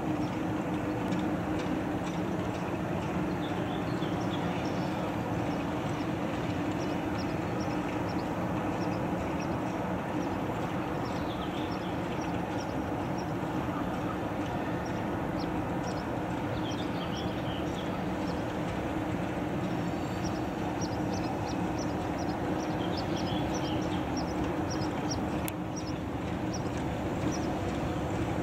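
A steady low mechanical hum over even background noise, holding the same level throughout, with short high chirps scattered over it, more often in the second half.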